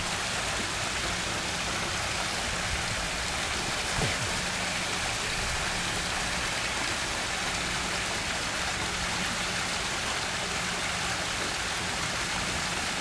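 Steady rushing noise of running water with a faint low hum underneath, and a soft knock about four seconds in.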